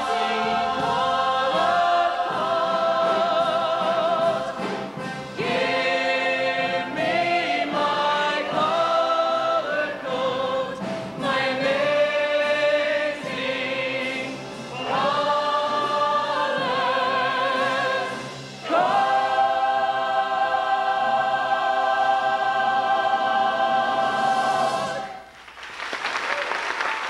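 Cast and choir of a stage musical singing together in phrases that rise and fall, ending on one long held chord about three-quarters of the way through. The audience breaks into applause near the end.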